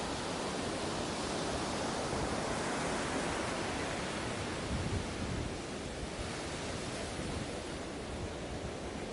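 Sea waves washing onto a beach: a steady rush of surf that swells a few seconds in and eases off a little about halfway through.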